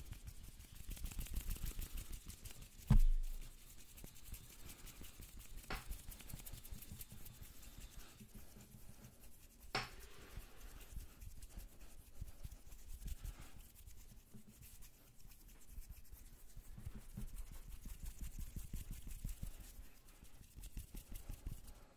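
Hands rubbing and swishing rapidly close to a microphone, making a fast, fluttery scratchy texture with low rumbling whooshes. A loud low thump comes about three seconds in, and two sharp clicks follow, near six and ten seconds.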